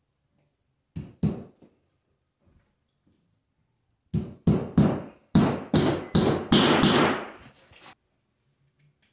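Hammer blows driving nails through mass loaded vinyl into a wall: two quick strikes about a second in, then a run of about seven strikes, roughly two a second, from about four seconds in until nearly eight.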